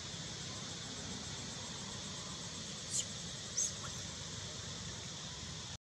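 Steady high-pitched drone of insects such as cicadas or crickets, with two short, sharp chirps that fall in pitch about three seconds in, half a second apart. The sound cuts out just before the end.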